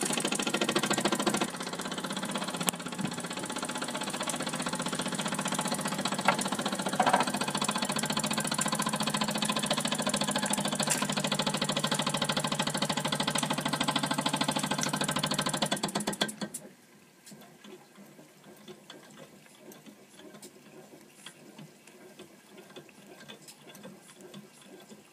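Wilesco D5 toy steam engine running fast on full steam: the oscillating cylinder chuffs and rattles in a dense, rapid beat. About 16 seconds in it cuts off suddenly, leaving only faint ticking.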